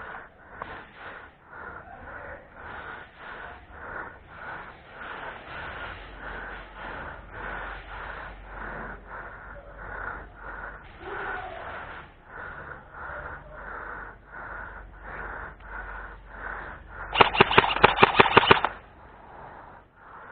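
Heavy breathing close to the microphone, about two breaths a second. About seventeen seconds in, an airsoft gun fires a rapid burst of about ten shots lasting a second and a half.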